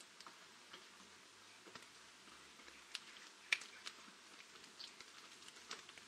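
Light rain: scattered drops ticking and pattering at irregular intervals, with one louder tick about three and a half seconds in.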